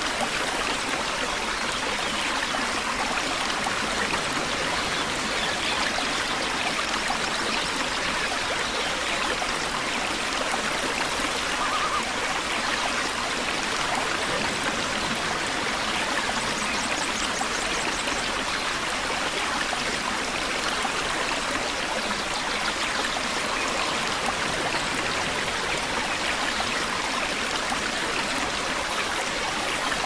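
Waterfall: falling water running in a steady, even rush with no breaks.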